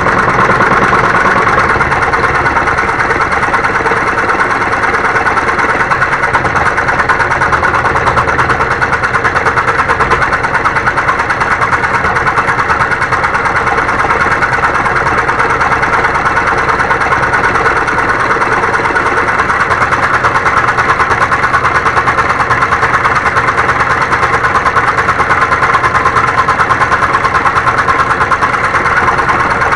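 Homemade scroll saw running steadily, its blade reciprocating rapidly with an even mechanical chatter as it cuts wood.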